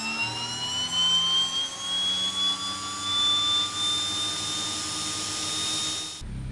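Turbine aircraft engine whine spooling up: a high whistle that rises in pitch and levels off into a steady tone over a lower hum, then cuts off abruptly near the end.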